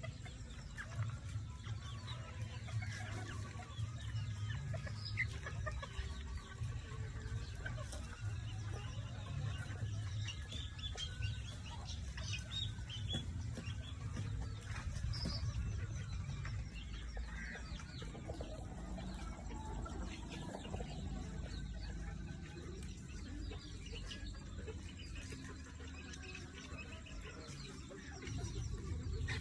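Several chickens clucking and calling in short, scattered notes, over a steady low rumble.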